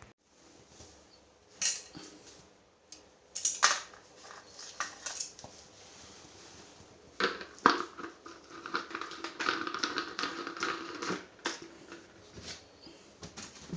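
Scattered clinks and knocks of hard objects being handled, a few at first and busier for a few seconds in the second half.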